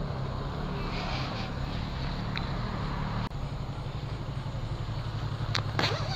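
Yamaha XJ6's inline-four engine running slowly at low revs, a steady low hum. It breaks off briefly about three seconds in, and a few sharp clicks come near the end.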